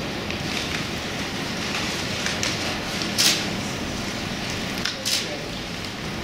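Crumpled brown-paper puppet rustling and crinkling as it is handled and moved, with two brief louder rustles about three and five seconds in, over a steady background hiss.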